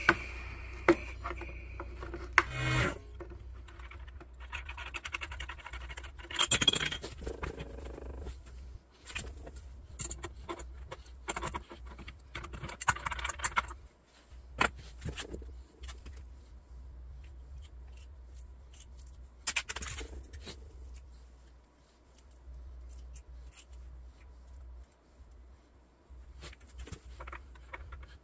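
Hands working the pressure regulator on a Husky pancake air compressor: scattered scratching, scraping and clicking of plastic and metal parts as the old regulator cap comes off the brass valve stem and the new regulator is screwed on. A low steady hum runs underneath.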